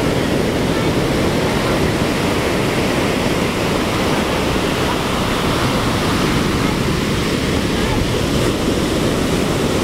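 Heavy surf from a hurricane swell breaking and washing up the beach, a steady rushing noise, with wind on the microphone.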